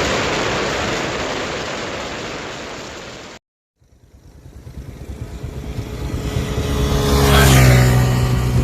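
A steady rushing noise that cuts off abruptly, then, after a moment of silence, a motor engine grows louder and passes close, its pitch sweeping as it goes by about three quarters of the way through.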